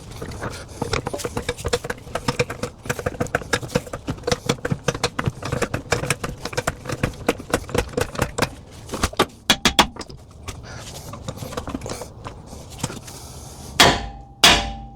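Rapid clicking of a socket ratchet working a suspension bolt, in quick runs for several seconds. Near the end come two hard hammer blows on steel, each ringing briefly.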